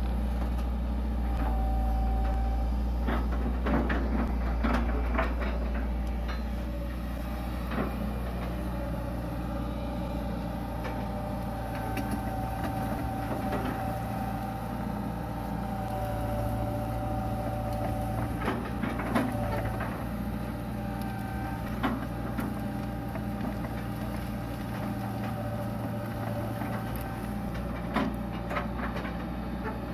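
A Hitachi EX120 long-arm excavator's diesel engine runs steadily, with a whine that shifts in pitch now and then as the hydraulics work the arm. Scattered knocks and clanks come from the bucket and arm at work.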